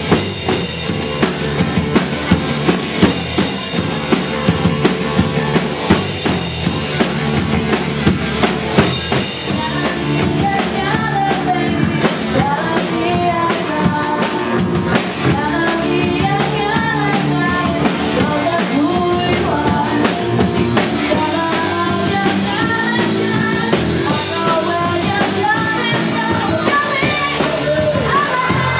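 Live rock band playing loudly: electric guitar and a drum kit, with a singer's voice over it. The drums are hit hard in a steady beat for the first nine seconds or so, then the music runs on more evenly with a wavering melody line on top.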